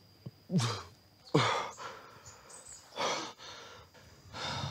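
A man sighing and groaning, the sound of being worn out: two voiced sighs that fall in pitch, about half a second in and just after a second (the louder one), then two breathy out-breaths near three seconds and near the end.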